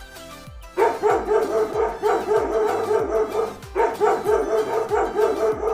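Dog barking in two quick runs of repeated barks, about four a second, starting about a second in with a short break in the middle.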